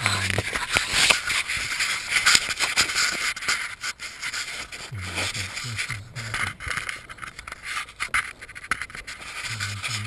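Close-up scraping and rustling with many small irregular clicks as a wire is fished through the floor wiring and carpet with a wire coat hanger.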